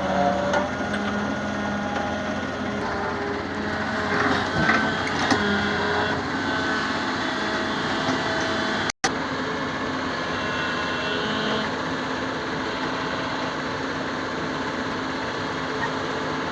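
Heavy machine's engine running steadily, with clattering knocks a few seconds in; the sound cuts out for an instant about nine seconds in, then the steady running carries on.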